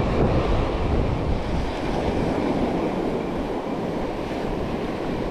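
Rough surf washing onto a beach, with wind buffeting the microphone.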